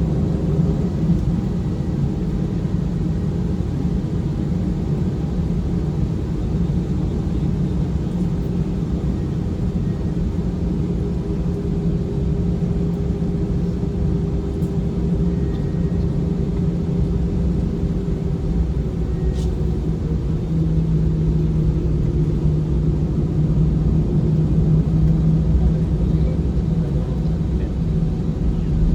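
Steady low rumble and hum of an airliner heard from inside the cabin while on the ground before takeoff, with a steady low drone that grows stronger about two-thirds of the way through.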